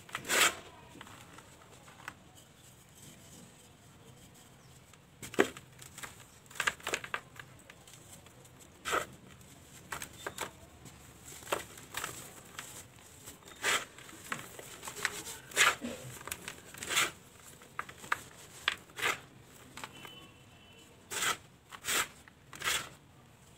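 Hands sifting dry, dusty dirt and cement powder and squeezing soft cement balls until they crumble: irregular gritty crunches and crackles, with quieter gaps between handfuls.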